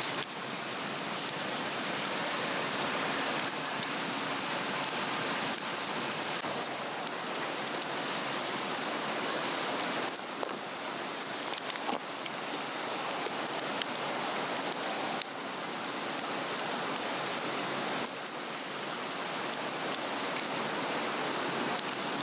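A Swedish torch, a cedar log slotted with a chainsaw, burning on a fire stand: a dense, steady hiss of flame with scattered small crackles.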